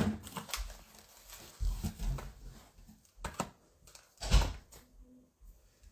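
Plastic wax-melt clamshell packs handled and set down on a tabletop: scattered light clicks and knocks, the loudest about four and a half seconds in.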